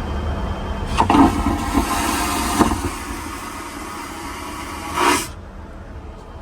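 Steady low drone of a Boeing 787 airliner cabin. A loud hiss comes in about a second in and lasts about four seconds, ending in a short louder rush.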